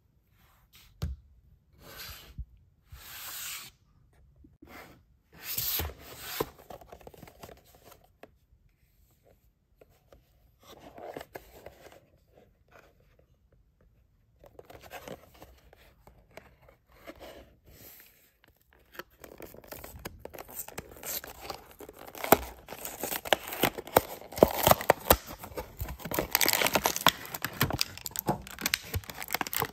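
Handling and packaging noise: a few scattered rustles and taps at first, then, about two-thirds of the way through, continuous loud crinkling, crackling and tearing as a clear plastic blister pack is pulled off its cardboard backing, with many sharp cracks of the plastic.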